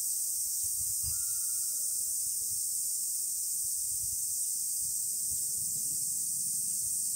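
Cicadas in loud, steady, high-pitched chorus, with faint glass wind-chime tones about a second in and a low rumble of wind on the microphone.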